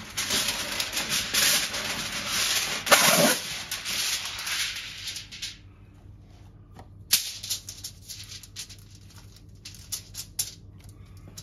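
Kitchen aluminium foil being pulled from its roll and crinkled as it is spread out, a loud crackling rustle for about five seconds. After that come lighter, scattered crackles and clicks as the foil sheet is handled, with one sharp click about seven seconds in.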